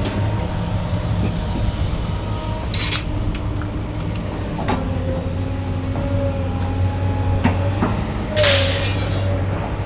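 A truck's engine running steadily as it drives off at low speed, with two short noisy bursts, one about three seconds in and one near the end.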